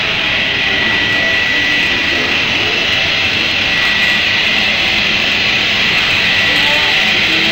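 Steady loud hiss of steam escaping from a Škoda-built class 556.0 2-10-0 steam locomotive standing under steam, with a thin steady whistling tone running through it.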